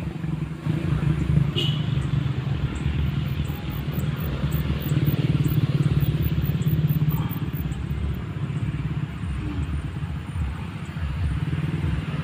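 A motorcycle engine running with a low, uneven rumble, growing loudest around the middle and easing off toward the end.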